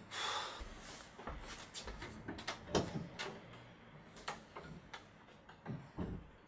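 A person getting up with a rustle of clothing, then footsteps and small knocks crossing a room. A door is opened and pulled shut, with a low thump near the end.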